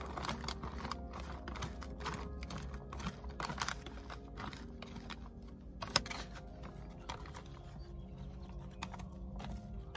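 A spoon stirring rehydrating freeze-dried biscuits and gravy inside a foil-lined meal pouch: a run of quick clicks and crinkles, busiest in the first few seconds, with one sharper click about six seconds in.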